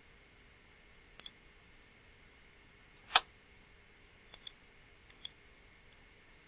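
Computer mouse clicking: a quick double click about a second in, a single louder click near the middle, then two more double clicks.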